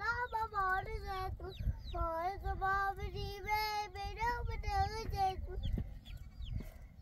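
A young child's high voice singing in long, wavering held notes, stopping about five and a half seconds in.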